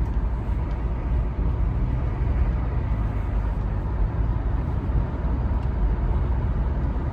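Steady low rumble of a running vehicle, even and unbroken.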